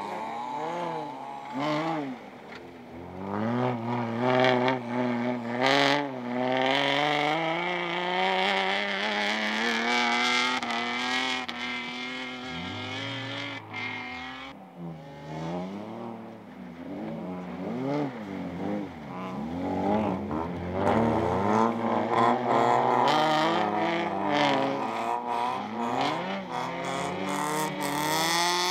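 Folkrace cars' engines revving hard on a snow track, the pitch climbing through the gears and dropping as the drivers lift off for corners. Around the middle two engines are heard at once, their pitches crossing.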